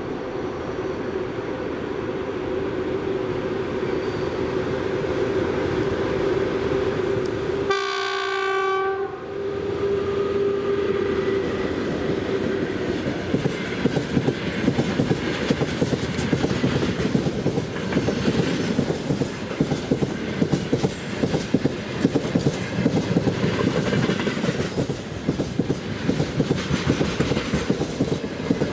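VL80S electric locomotive with a freight train: a steady hum as it approaches, then a short horn blast about eight seconds in. Then its wagons pass with a fast, continuous clickety-clack of wheels over the rail joints.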